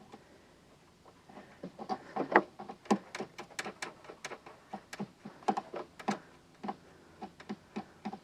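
Small metal clicks and taps, coming irregularly and sometimes in quick runs, as a bolt is started and turned down on a car battery's hold-down strap.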